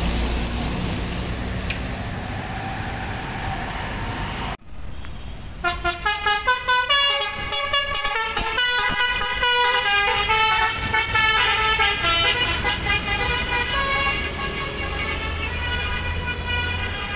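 A Mercedes-Benz OC 500 RF coach's engine running as it pulls away, cut off abruptly about four and a half seconds in. About a second later a bus's multi-tone musical 'telolet' horn starts, playing a quick tune of changing notes that goes on almost to the end.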